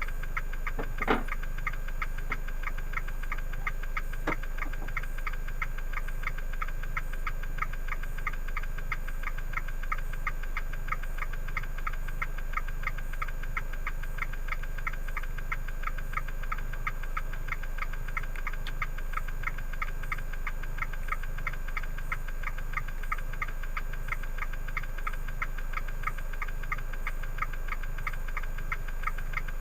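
Fiat 500 Abarth's 1.4 turbo four-cylinder running, with an odd, rapid, even ticking over a steady low hum, plus a sharper click about a second in and another around four seconds. The owner finds the sound unrelated to revs, speed or gear and suspects the ECU was in an adaptation phase.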